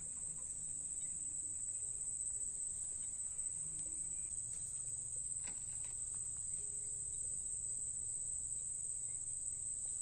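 Steady, shrill insect chorus, one unbroken high-pitched drone, over a faint low rumble.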